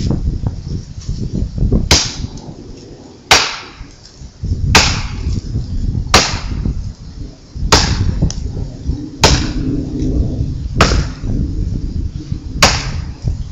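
An antique axe, from the 1800s, chopping into a tree trunk: eight sharp strikes, about one every second and a half.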